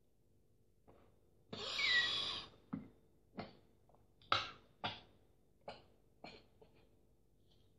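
A person's breath: one long, hard puff of about a second with a brief whistle in it, then a run of about six short, sharp breaths.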